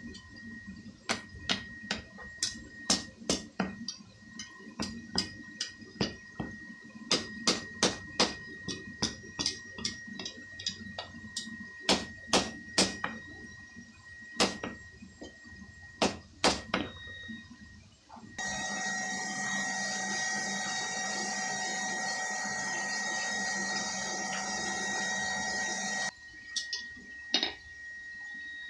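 Hammer blows on hot steel at the anvil, irregular strikes about one to two a second, each with a short metallic ring. About 18 s in, the strikes give way abruptly to a steady rushing noise for about eight seconds, which cuts off just as suddenly before a few more hammer blows.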